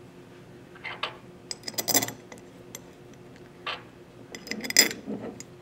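Small machine screws clicking and clinking against an aluminium housing cover as they are set into its holes by hand. A few light, scattered clicks, busiest about a second before the end.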